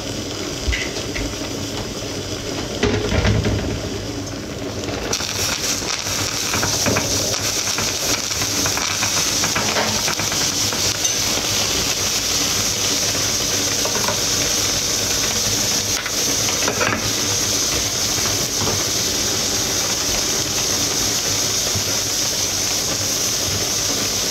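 A steady hiss starts abruptly about five seconds in and keeps going, with a few light knocks of kitchenware over it.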